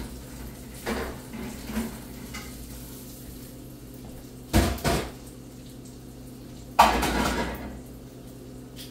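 Pans and metal cooking utensils clattering on a stovetop. A few light taps early, a sharp double knock about halfway, and a louder clatter near the end that trails off over about a second.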